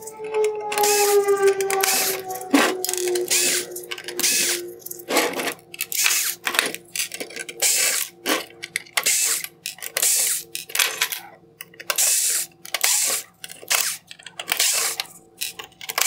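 Cordless electric screwdriver backing out small T10 Torx screws from a headlight's LED circuit boards, in many short bursts about a second apart.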